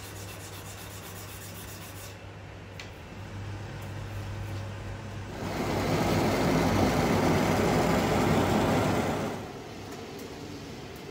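Workshop machine running with a steady low hum. From about five and a half seconds in, a louder rough grinding noise lasts for about four seconds, then drops back to the hum.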